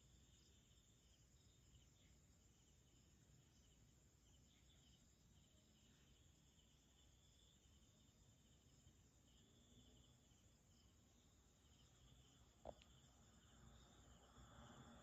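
Near silence with a faint, steady chorus of night insects chirring, and a single sharp click near the end.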